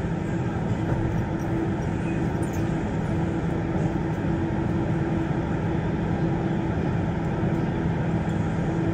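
Siemens VAL 208 rubber-tyred automated metro running at steady speed, heard from inside the car: an even rumble with a constant motor hum.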